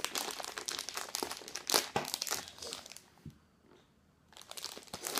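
Clear plastic packet of jelly beans crinkling as it is handled, stopping for about a second past the middle and then starting again.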